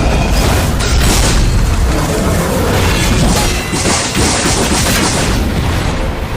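Loud booming battle sound effects, heavy rumbles and crashing impacts, layered over dramatic music.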